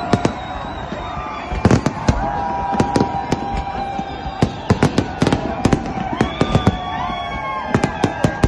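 Fireworks bursting: an irregular run of sharp bangs, in places several a second, over a continuous din with held, wavering tones.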